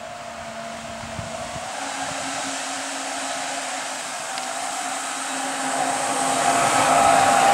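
Electric jet drive of a home-built jet kayak, a steady high whine over a hiss of spray, growing louder as the kayak comes closer.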